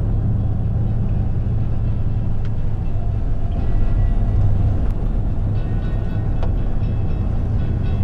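Steady low drone of a vehicle's engine and tyres on a paved road, heard from inside the cabin while driving.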